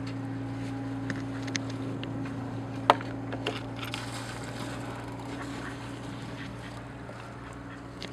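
A narrowboat's engine running with a steady low hum, and a few sharp clicks on top, the loudest about three seconds in.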